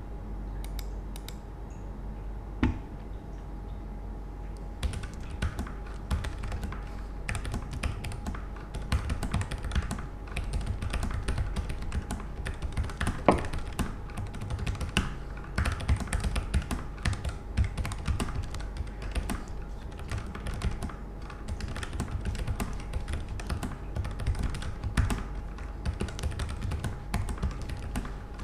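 Typing on a Keychron K3 v2 low-profile mechanical keyboard whose optical black switches and stabilizers have been hand-lubed with Krytox 205g0. Only a few keystrokes come in the first few seconds, then a steady, irregular stream of keystrokes.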